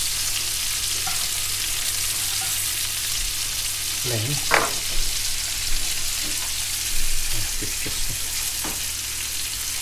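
Seafood pieces sizzling in hot oil in a frying pan on a gas hob, a steady frying hiss. A few light knocks of a utensil against a dish come about halfway through.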